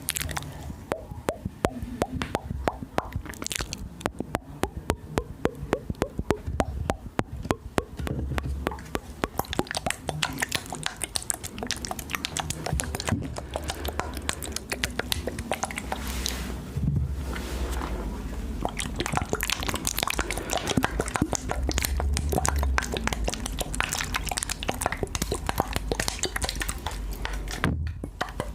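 ASMR mouth sounds close to the microphone: rapid wet clicks and smacks of the lips and tongue, many a second, with brief pauses now and then.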